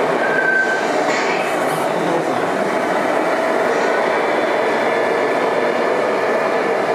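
Radio-controlled scale semi-truck driving slowly, a steady rumbling noise, with a brief high squeak about half a second in.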